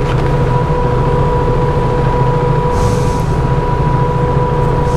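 KTM RC 390's single-cylinder engine idling steadily in an underground garage, with a thin steady whine running alongside it.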